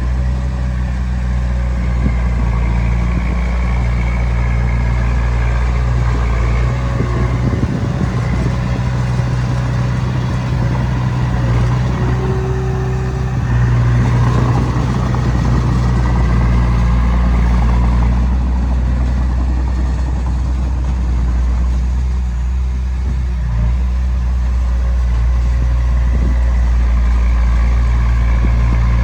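Diesel engine of heavy earthmoving machinery running continuously, its note rising and easing with the load as it works.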